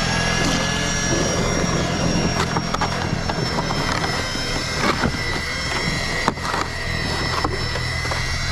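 Engine running steadily at high speed with a high whine over a low hum, just after spinning up, with scattered knocks and clatters.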